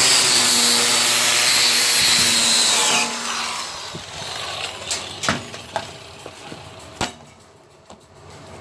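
Multiplaz 3500 plasma torch arc running with a loud, steady hiss, then cutting off about three seconds in. A few sharp clicks and taps follow.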